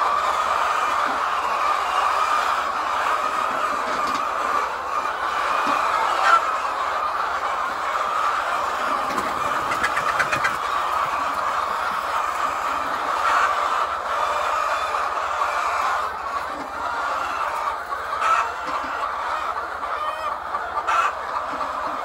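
Flock of laying hens clucking and chattering in a continuous chorus, with a few louder single calls standing out now and then.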